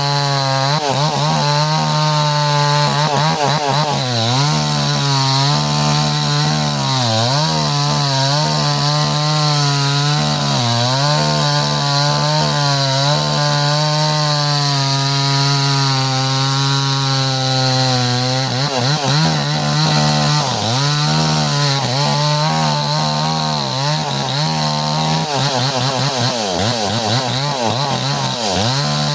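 Chainsaw running at high revs while cutting into a standing tree trunk to fell it. The engine note keeps dipping and recovering every second or few seconds as the chain bites and bogs in the wood.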